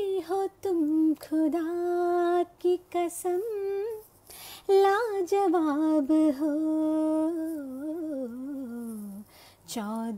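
A woman singing a Hindi film song solo with no accompaniment, holding long, ornamented notes with short breaks between phrases. Near the end one phrase slides down to a low note, and a new phrase starts just after.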